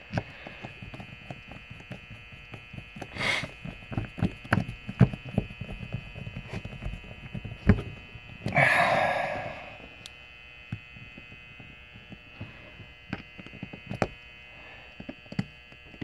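Small screws being driven back into a Sargent mortise lock cylinder's tailpiece with a precision screwdriver: a run of light clicks and taps, thinning out in the second half. There is a breath about three seconds in and a longer one near nine seconds, over a steady faint hum.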